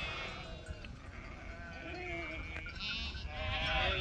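Several sheep bleating, faint overlapping calls with a quavering pitch, scattered throughout.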